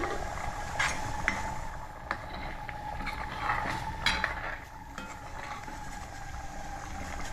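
Metal ladle stirring thick, simmering mutton curry in a kadhai, clinking and scraping against the pan several times.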